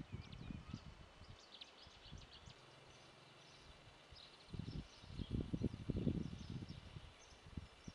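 Small birds chirping and twittering, over gusts of wind buffeting the microphone; the strongest gust comes about five to six seconds in.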